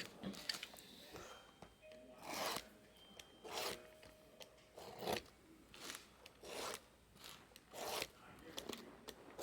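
A series of short rubbing swishes, about one a second, at irregular intervals.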